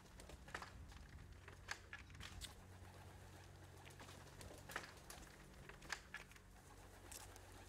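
Faint cooing of racing pigeons, with a few soft clicks.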